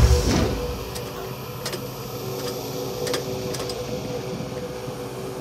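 A low thump, then a steady mechanical-electronic hum with a few faint ticks: the flying saucer's science-fiction sound effect.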